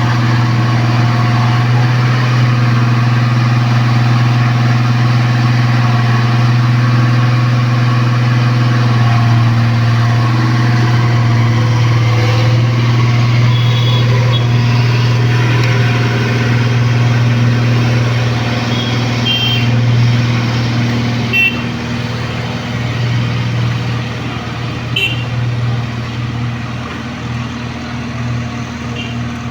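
Case 1107 road roller's diesel engine running steadily with a deep, even hum. It grows somewhat quieter and less even over the last third, with a few faint short chirps in the middle.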